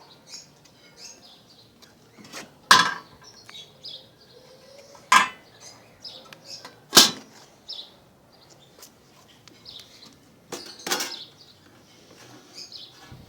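Galvanized sheet-metal dog food dispenser clanking: a series of sharp metallic clanks a couple of seconds apart, each with a short ring, with faint bird chirps in between.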